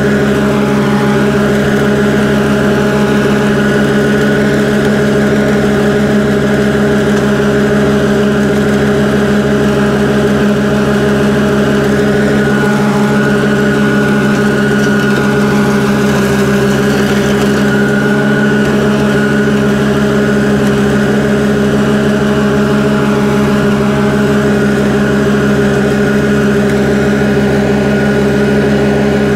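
Engine of a New Holland ride-on mower running steadily at working speed while it mows, a constant even drone with no changes in pitch.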